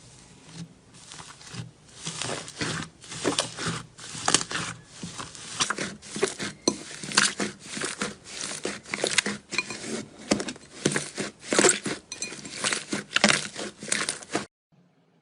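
Slime being squeezed and pressed by hand, in repeated strokes about two a second, stopping suddenly near the end.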